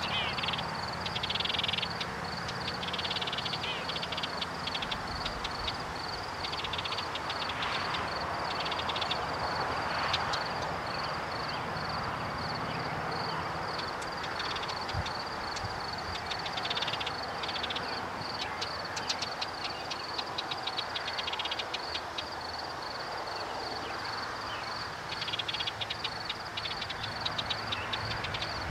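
Outdoor wildlife chorus: a steady high-pitched pulsing call, a few pulses a second, with short bursts of quicker rattling trills now and then over a soft rushing haze.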